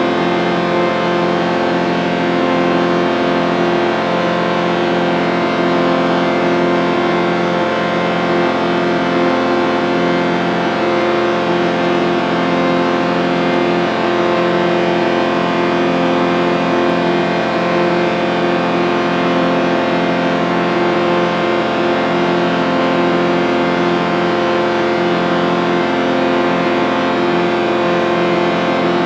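A sustained, distorted chord of many steady tones, held without change, with a fast wavering shimmer running through it.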